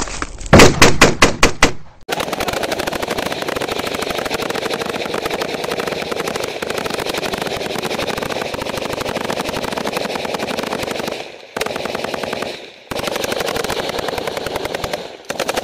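Automatic gunfire in a firefight. About half a second in comes a quick string of roughly seven loud, close shots. Then come long, unbroken machine-gun bursts, with brief pauses near the end.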